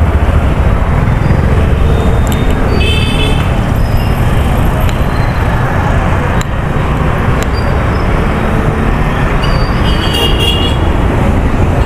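Steady street traffic noise, with short high-pitched vehicle horn toots about three seconds in and again near the end.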